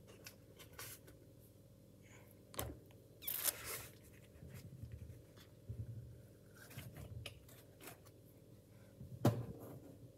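Hands handling a clear plastic glove packed with water beads (Orbeez) in a stainless steel sink: faint, scattered crinkles and taps, with a brief rustle about three seconds in and a sharper tap near the end.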